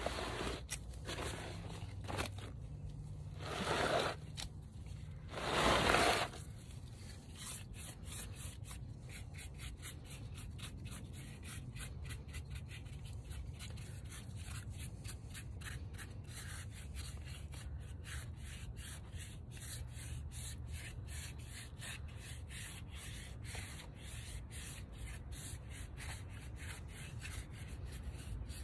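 Stiff-bristled paintbrush scrubbing paint onto a rough cast concrete statue, bristles scratching over the textured surface in quick, short strokes. Two longer, louder rubs come about four and six seconds in.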